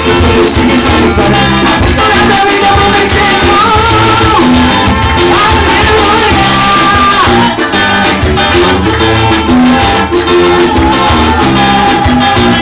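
Upbeat Brazilian gospel band music with a steady beat and a held melody line.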